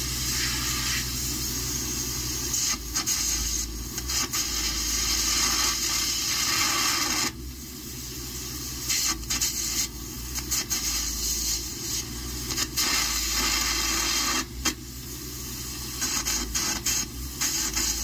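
Air carbon arc gouging torch running at over 400 amps, cutting out a crack in a loader bucket before it is welded: a loud steady hiss of compressed air with the crackle of the arc, breaking off briefly about seven and fourteen and a half seconds in.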